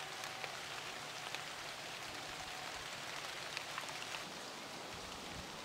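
Faint, steady patter of light rain, with a few scattered drops ticking.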